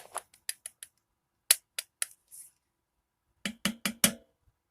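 Toy revolver's mechanism clicking in quick runs of three or four sharp clicks, about a dozen in all, with short pauses between runs; a very metal-sounding click.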